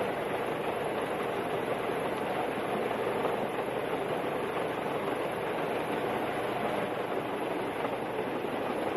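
Helicopter rotor and engines running steadily, a constant even noise with no breaks.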